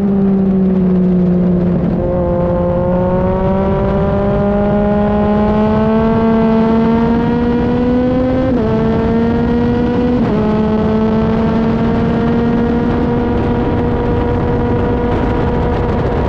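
Track motorcycle engine under way: its note sags through a corner, then climbs steadily under acceleration, drops sharply twice past the halfway point as the rider changes up, and holds a steady note after that. Wind rushes over the microphone throughout.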